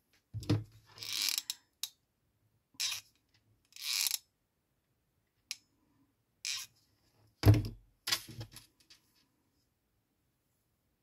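Short, scattered rustles and clicks of hands working yarn and crochet materials, about nine separate bursts with quiet between. The loudest is a dull knock about two-thirds of the way through.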